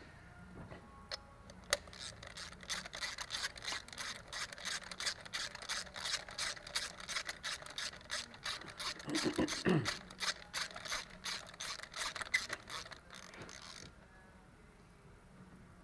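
Socket ratchet clicking rapidly, about four clicks a second, as a new spark plug is run down into its hole; the clicking stops about fourteen seconds in. A short low sound comes about halfway through.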